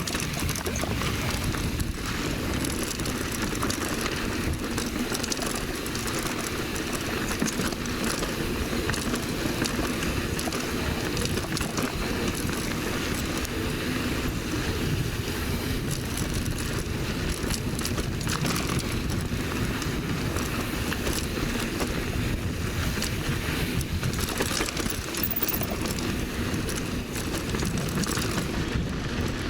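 Mountain bike ridden along a dirt trail: steady tyre noise with a constant rattle of small knocks over bumps.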